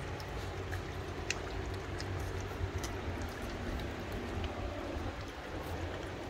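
A litter of young puppies lapping and slurping wet mush from a steel feeding pan, a steady run of small wet clicks and smacks over a constant low hum.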